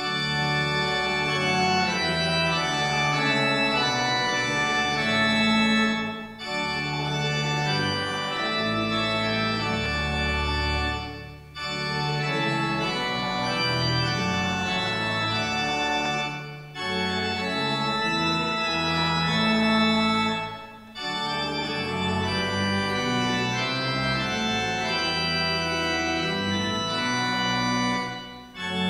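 Church organ playing a slow, chorale-like piece of sustained chords. It moves in phrases of roughly five seconds, each ending in a short break.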